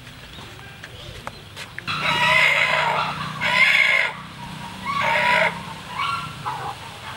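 A rooster crowing repeatedly, starting about two seconds in, with several loud calls.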